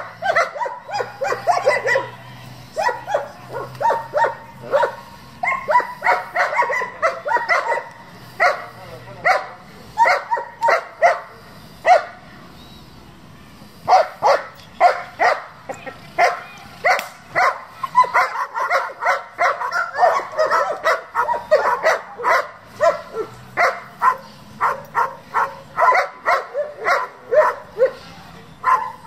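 German Shepherd barking hard in fast, repeated volleys of several barks a second at a decoy's bite roll in protection training, with a pause of a second or two a little before the middle.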